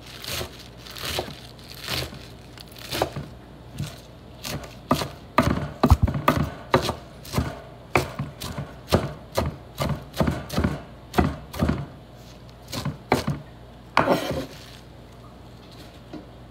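Chef's knife chopping fresh spinach on a wooden cutting board: the blade strikes the board about twice a second, and the chopping stops a couple of seconds before the end.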